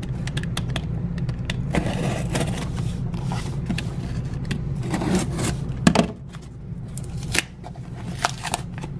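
Utility knife slitting packing tape on a cardboard box: scraping and crackling of tape and cardboard, with a run of short clicks and taps, the sharpest about six seconds in.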